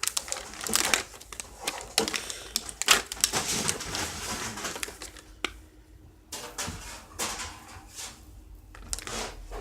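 Plastic food packaging and its tray crinkling and clicking as they are handled and opened, in irregular bursts of sharp clicks and rustles, with a short lull about halfway through.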